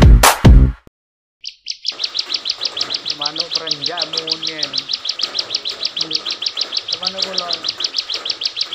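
Ciblek (a prinia songbird) in full song: a long, rapid, evenly repeated run of sharp high chirps that starts about two seconds in, after a couple of lead-in notes. Loud electronic music beats end the first second, and faint voices sit underneath the song.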